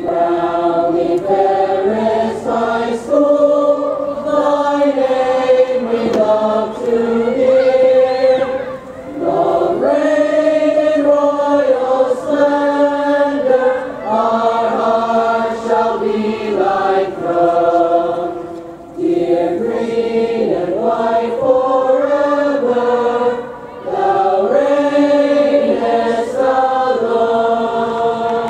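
A choir singing in several parts: held chords sung in phrases, with brief pauses for breath between them.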